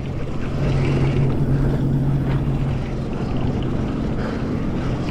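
Sea-Doo jet ski engine running steadily at low speed, a constant low hum under water and wind noise.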